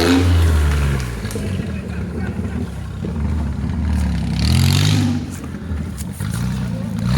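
Off-road vehicle engine revving up and dropping back several times, running lower between the revs.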